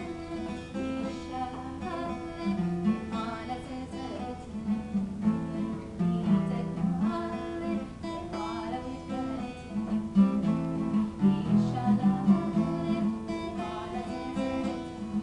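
Acoustic guitar playing the chords and picked notes of an Amharic Christian worship song (mezmur).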